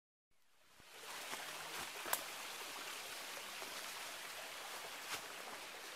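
Steady rushing of a forest stream, fading in after a brief silent gap, with a sharp tick about two seconds in and another near five seconds.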